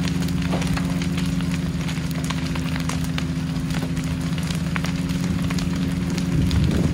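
A burning building crackles over a steady, loud engine hum. The hum stops abruptly at the end.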